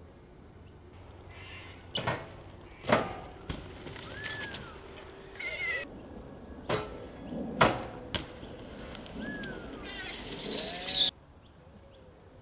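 BMX bike being ridden: a run of sharp knocks and clanks from landings and impacts, two short rise-and-fall squeaks, and a long high scraping hiss that cuts off suddenly near the end.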